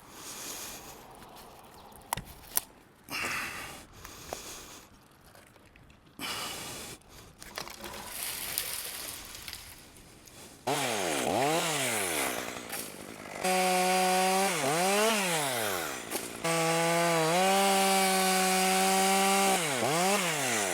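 Two-stroke chainsaw bucking a dead ash limb: scattered knocks and rustling for about the first half, then the saw revs up and down and runs at full throttle through two long cuts with a short dip between, dropping back near the end.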